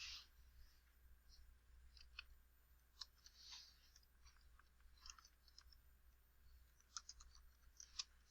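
Near silence with faint, scattered clicks from computer use, irregularly spaced, a dozen or so over several seconds.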